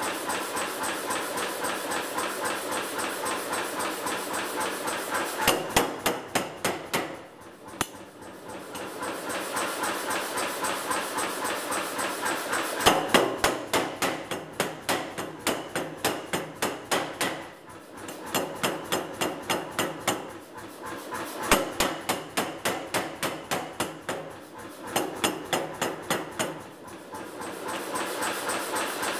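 Air power hammer forging red-hot steel in a tong-making jig: a steady run of strokes at about three a second, rising several times into runs of louder, heavier blows with short lulls between them.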